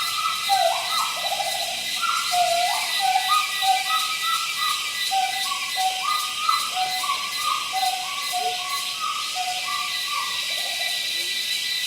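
Monkeys giving many short, high chirping calls in quick irregular succession, at two alternating pitches, over a steady high hiss.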